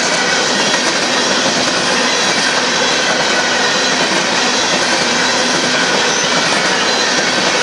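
Coal hopper cars of a Union Pacific freight train rolling past on the rails: a steady, loud noise of wheels on track.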